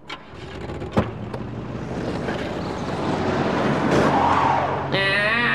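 Cartoon sound effect of a car: a sharp click about a second in, then the engine running and tyres skidding, the noise building over the next few seconds.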